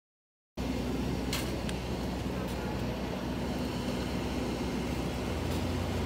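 Steady drone of a parked Boeing 737-800 airliner and its apron, a low hum with a held tone. It cuts in suddenly about half a second in, with a few light clicks over it.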